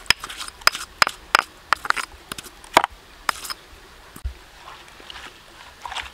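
A utensil clicking and knocking against cookware as chopped chili paste is tipped and scraped into the pan: a quick run of sharp clicks in the first half, fewer later.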